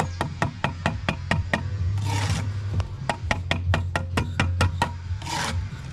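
A brick trowel tapping a brick down in lime mortar until it sits true to the spirit level laid across the course. The taps come as quick runs of light knocks, about five a second, in two runs of roughly one and a half to two seconds. There is a short scrape between the runs and another near the end.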